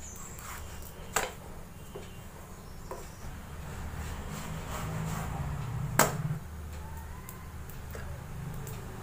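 Wooden spatula knocking and rubbing against a flat griddle pan (tawa) while a puffing kuboos flatbread is pressed and turned, with two sharper knocks about a second in and about six seconds in, over a low steady hum.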